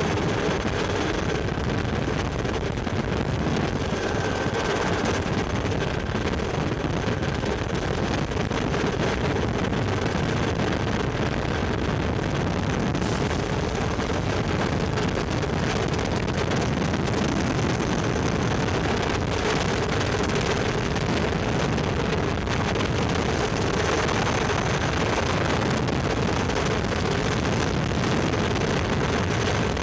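Steady helicopter cabin noise in flight: the rotor and turbine drone without a break, with a faint steady high tone on top.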